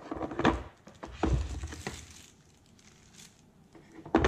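Handling noise: a power adapter and its cords being lifted and moved about in a cardboard box, with rustling and a few knocks, and another knock near the end.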